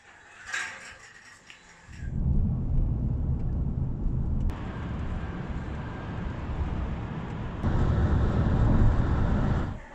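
Steady low rumble of a vehicle on the move, starting about two seconds in, growing louder near the end and cutting off suddenly.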